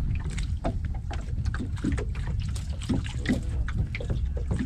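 Sounds on board a small open fishing boat sitting on the water: a steady low rumble with scattered knocks and water slaps against the hull, and faint voices now and then.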